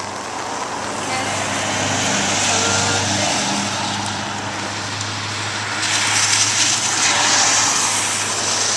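Heavy rain falling in a steady hiss that grows louder about six seconds in.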